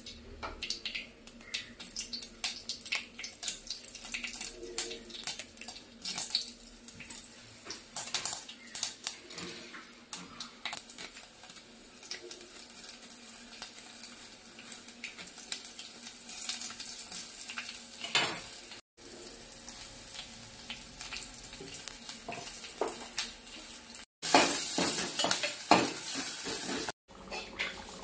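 Hot oil crackling and sizzling in a metal pot as seeds and dried red chillies fry for a seasoning, with spoon and pot clatter. Near the end there are a few seconds of louder, denser sizzling.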